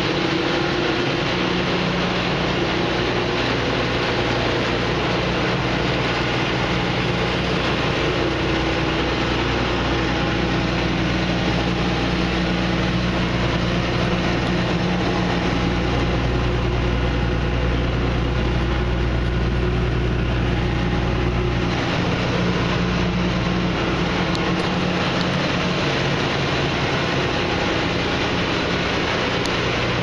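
The Claas Avero 240 combine's 205 hp Perkins diesel engine running steadily, with a low drone that grows stronger for a few seconds around the middle.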